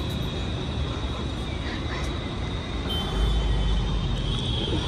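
Outdoor city ambience: a steady wash of distant traffic noise with a thin, steady high whine over it. A deeper rumble swells about three seconds in.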